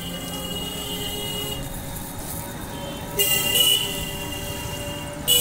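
Vehicle horns honking in street traffic: a long honk a little after three seconds in and a short one at the very end, over a steady high-pitched tone.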